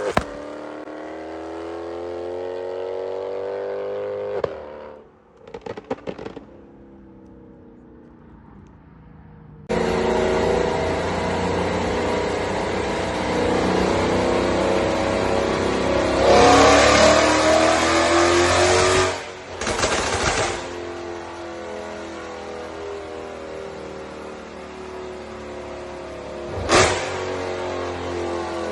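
A tuned Mercedes-AMG C63's engine and exhaust being revved in rises of pitch, each rev dropping off into quick crackles and pops as the throttle closes: deliberate backfire on the overrun from a crackle-tune. A single loud bang comes near the end.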